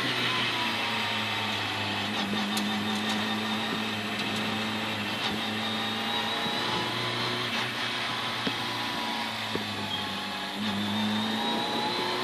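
Citroën C2 R2 Max rally car's four-cylinder engine running at low revs, heard inside the cabin, its pitch sagging gently and picking up again near the end. A few light clicks and rattles come from the cabin.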